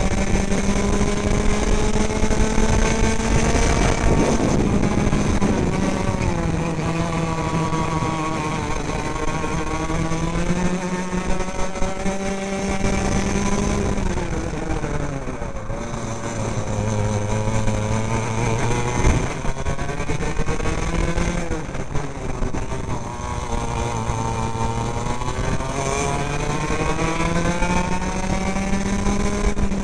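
Racing kart engine heard from the driver's seat at speed, its pitch climbing slowly along the straights and falling away several times as the kart slows for corners, most steeply about fourteen seconds in.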